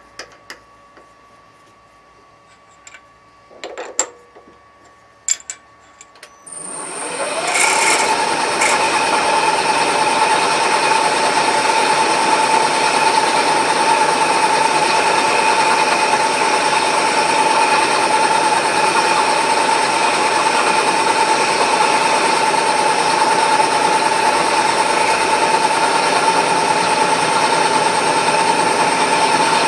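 A few light knocks of handling, then a workshop machine tool starts about six seconds in, winds up over a second or so, and runs steadily with a constant whine.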